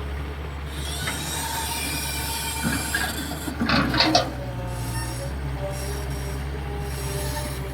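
Hitachi EX220-3 long-boom excavator at work: its diesel engine runs steadily under metallic squealing and creaking from the moving machine, with a louder burst of squeals and knocks about four seconds in.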